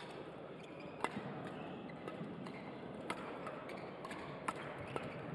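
Badminton rally: rackets strike the shuttlecock in sharp hits, the loudest about a second in and a few more spaced a second or two apart, over steady sports-hall background noise.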